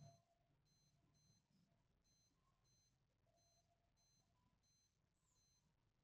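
Very faint electronic beeps from a wrist blood pressure monitor, repeating about every two-thirds of a second, with a soft bump right at the start.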